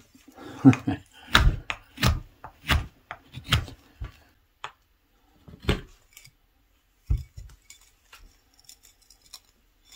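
Mora knife shaving thin curls off a wooden spatula blank. Short scraping cuts come about every two-thirds of a second at first, then grow sparser, ending in a few faint clicks.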